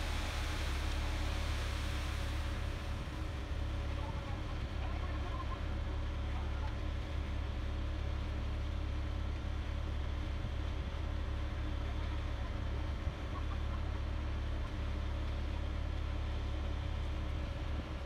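Ready-mix concrete truck's diesel engine running steadily as it turns the drum and discharges concrete down the chute: a constant low drone. A hiss sits over it in the first couple of seconds, then fades.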